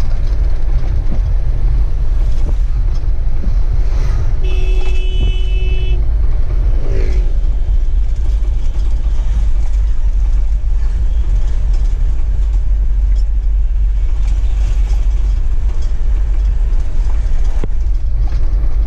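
Steady low rumble of a Mahindra vehicle's engine and tyres on the road, heard inside the cab while driving. A horn sounds once for about a second and a half, about four and a half seconds in.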